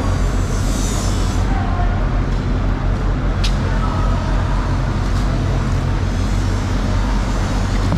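A steady low mechanical rumble, as of an engine running close by, with a single short sharp click about three and a half seconds in.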